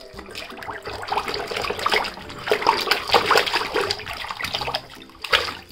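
Water splashing and sloshing in irregular splashes as a hand swishes through a shallow paddling pool, rinsing a plastic toy excavator.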